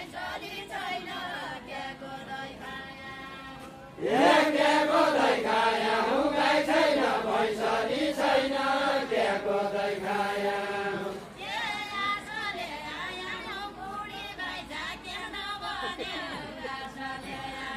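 Group of men singing a deuda folk song together, unaccompanied. A louder group line comes in suddenly about four seconds in and drops back to quieter singing about seven seconds later.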